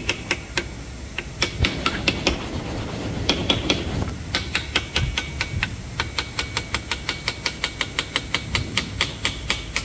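Quick, light metal-on-metal tapping on a harrow's hydraulic cylinder being dismantled for repair. The taps are irregular at first, then from about halfway settle into a steady run of about five a second.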